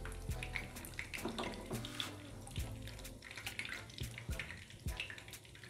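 Egg-coated chicken shami kababs shallow-frying in hot oil: a steady sizzle with many small crackles and pops.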